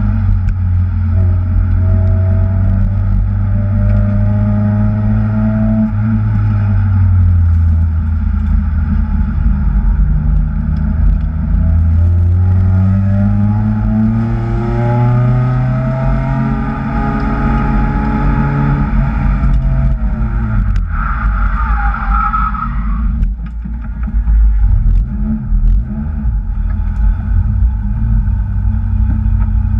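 Kraftwerks-supercharged Acura TSX engine under hard driving, its pitch climbing and falling again and again as the car accelerates and lifts off. A short high-pitched squeal or whine sounds about two-thirds of the way through, after which the engine note is lower and rougher.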